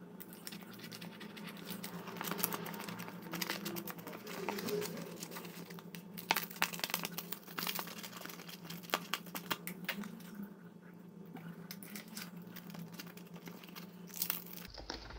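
Stiff 60-grit sandpaper being creased and folded back and forth over a board edge, crackling and scraping as it splits along the fold, with many sharp crackles densest in the middle, over a steady low hum.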